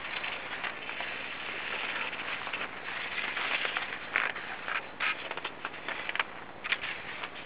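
Skis sliding and crunching over snow: a steady scraping hiss broken by frequent short, sharp crunches.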